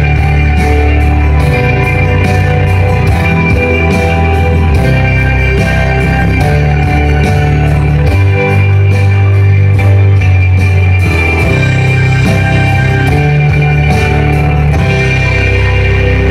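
Rock music with guitar and a steady drum beat, played through a Monoprice stereo hybrid tube amplifier as a sample of how it sounds.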